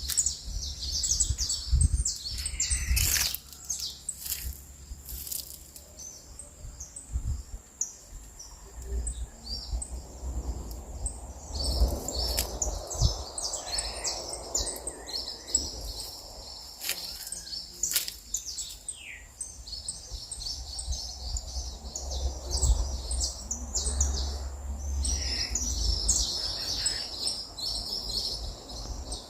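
Several small birds chirping and singing in quick, high-pitched overlapping calls, with a low rumble underneath.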